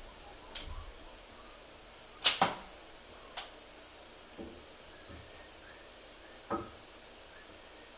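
A few sharp clicks and knocks of tools and parts being handled, the loudest a quick double knock about two seconds in.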